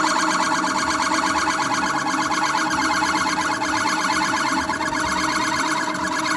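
Centre lathe parting off: the parting tool cuts into the spinning metal bar, giving a steady tone under a fast, even pulsing chatter.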